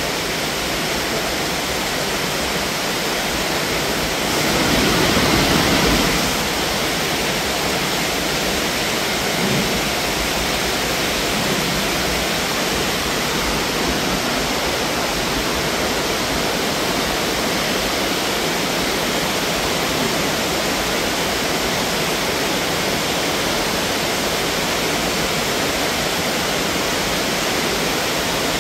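Steady rushing of water in an underground river cave, swelling louder for a couple of seconds about four seconds in.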